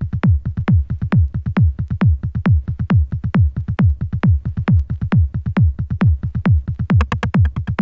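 Opening of a progressive trance dub: a steady electronic kick-drum beat, each thump dropping in pitch, with lighter hits between. Bright hi-hat ticks join about seven seconds in.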